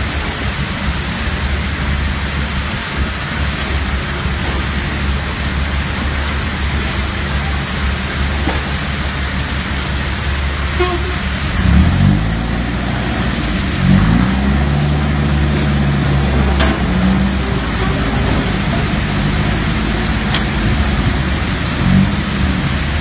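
Diesel engine of a Hino Mega six-wheel dump truck towing a trailer, running steadily with heavy road and wind noise. About halfway through, the engine note climbs twice in quick succession as it revs, with smaller rises later.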